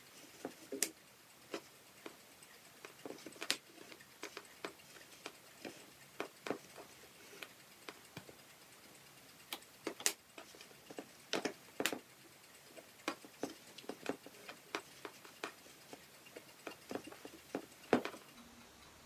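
Faint, irregular clicks and taps with light rustling: hands weaving fabric strips through the string warp of a foam board loom, the strings flicking against the board.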